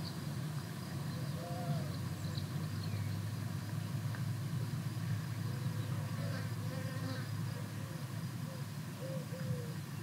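A fly buzzing steadily over wind, with short bird chirps a few times in the background.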